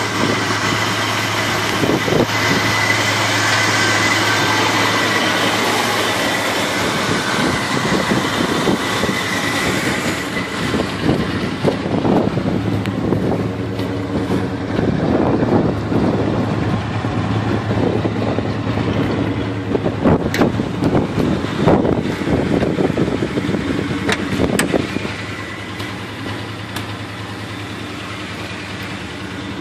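A 1971 Chevevelle's engine idling steadily, with uneven louder pulses through the middle and a slightly lower level near the end.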